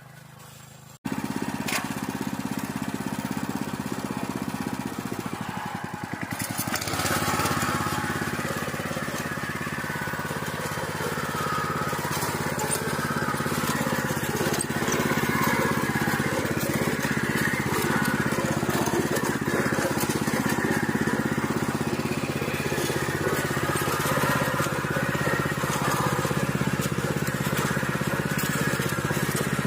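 Engine of a small motor plough (tiller) running steadily, starting abruptly about a second in. From about six seconds in, a rough grinding noise joins it as the machine works stony soil.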